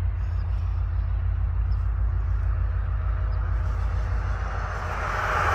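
Low, steady rumble of a diesel locomotive approaching slowly, mixed with wind buffeting the microphone. Near the end a louder, noisier sound with a steady tone begins to build.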